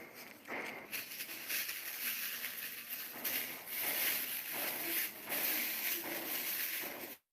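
Close-up chewing of crunchy singju salad: irregular wet crunches and munching near the microphone. The sound cuts out for a moment near the end.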